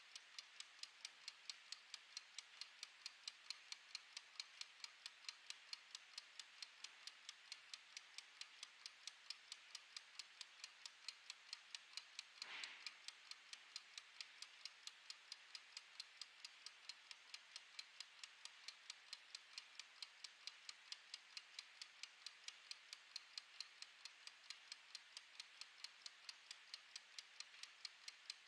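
Mechanical clockwork kitchen timer ticking faintly and evenly, about three ticks a second, as it counts down. One brief soft noise about twelve seconds in.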